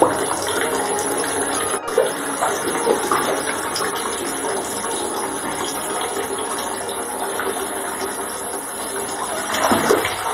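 Water running steadily into a bathtub, with small splashes as a kitten paddles and walks through the shallow water. There is a louder splash near the end.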